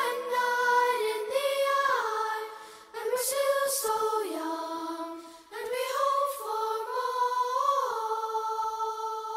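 Song with a sung vocal in long held notes and little backing, in phrases with short breaks between them; the last note is held from about eight seconds in and slowly fades.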